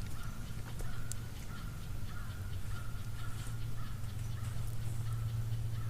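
Distant birds calling over and over in short repeated notes, about two a second, over a steady low hum.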